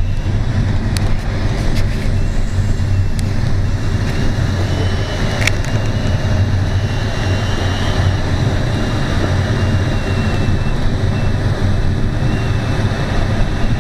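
Steady rushing of air around a sailplane's canopy in gliding flight, heard from inside the cockpit with no engine running. A faint, thin high tone wavers slightly above the rush, and a few small clicks come in the first half.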